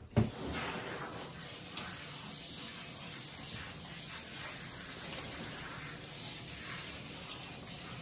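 A steady hiss of water spraying, as from a grooming-tub sprayer, switched on with a click just after the start.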